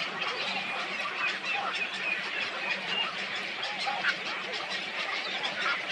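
A flock of waterbirds calling together, with many short overlapping calls and honks in a continuous chatter.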